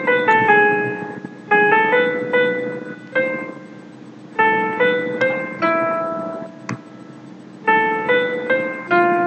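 MuseScore 2 notation software playing back a notated melody in a piano sound: short phrases of a few quick notes with pauses between them, at a slow tempo of 73 bpm.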